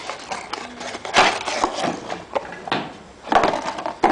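Cardboard parts box being handled: rustling and light knocks as a new rubber subframe bushing is lifted out of it, with two louder bursts of rustling, about a second in and again near the end.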